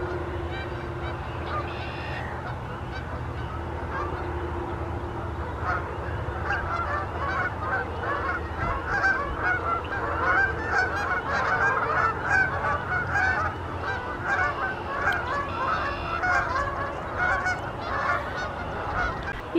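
A flock of sandhill cranes calling, many overlapping calls that grow denser and louder from about six seconds in.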